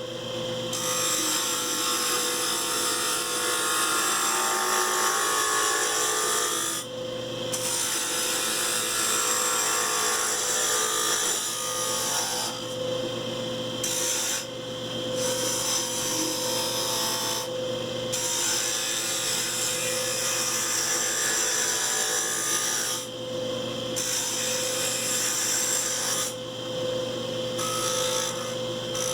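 Wood lathe running with a steady motor hum while a turning tool cuts the spinning wood, giving a rough scraping hiss. The cutting noise stops briefly several times as the tool is lifted off, leaving the motor hum.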